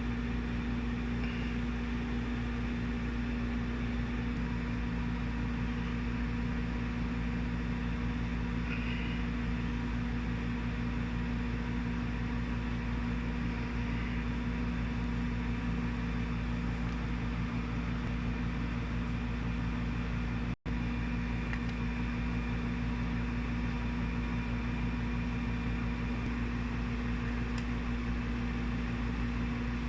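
Steady low mechanical hum with a constant drone-like tone and a low rumble, unchanging throughout, cutting out for an instant about twenty seconds in.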